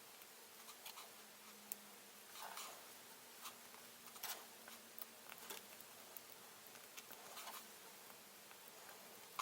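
Faint, irregular clicks and short scratching sounds of small plastic model-kit parts being clipped and handled, over a low steady hum.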